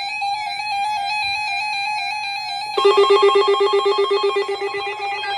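Electronic emergency alert tones opening a National Weather Service severe thunderstorm watch alert. First a steady tone with a slight waver, then a little under three seconds in, a louder rapid trilling pattern of several pitches.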